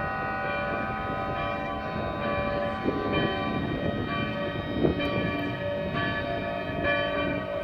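Church bells ringing, a new strike about every second, over steady held siren tones: bells and sirens sounding together as a public memorial alarm for the 1960 Valdivia earthquake.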